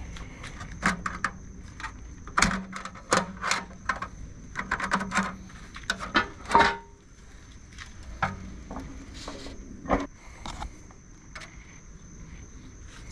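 Nomad portable charcoal grill being unlatched and its metal lid opened: a quick clatter of clicks and knocks from the latches, handle and lid for the first several seconds, one with a short ring, then a single knock a few seconds later.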